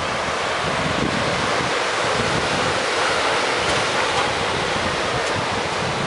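Pacific Ocean surf breaking and washing up a sandy beach, a steady rushing noise, with wind buffeting the microphone in low, uneven rumbles.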